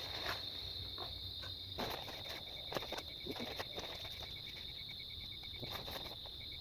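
Insects trilling in a steady high, continuous tone. A second, rapidly pulsing chirp joins about two seconds in, with scattered light clicks and knocks.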